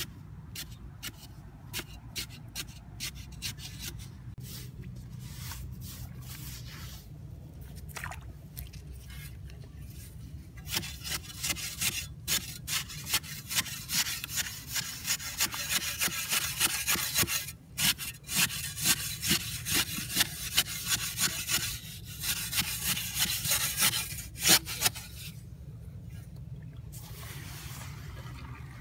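A metal digging bar jabbed again and again into dry, packed soil at the bottom of a deep hole, each stroke a sharp crunching hit. About ten seconds in, the strokes turn into a faster, louder run of scraping and grinding against the earth, and near the end they give way to softer rustling of loose soil.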